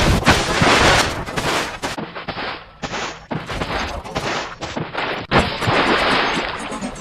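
Heavily edited sound-effect audio: noisy bursts spliced together with abrupt cuts, switching between full and muffled sound every half second or so, with a sharp crack about five seconds in.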